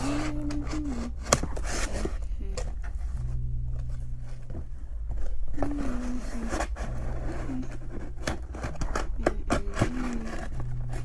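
Clicks and scraping of a box and its packaging being handled, with snips like scissors cutting.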